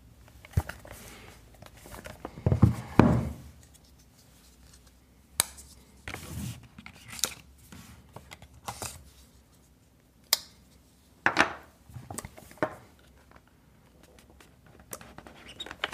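A cardboard watch box handled by hand: scattered scrapes, taps and clicks of fingers and cardboard, with a louder bout of handling about three seconds in.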